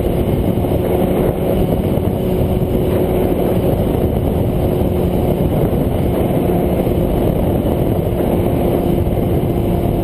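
A 650 motorcycle engine running at a steady cruising speed, with a constant hum and heavy wind and road noise.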